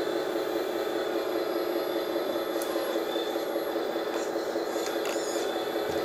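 Steady hum of a 1/14 MT Model Komatsu WA480 RC hydraulic wheel loader at work: its sound module's simulated diesel engine running together with the hydraulic pump, which is turned up for higher pressure while the fork arm is tilted and lifted.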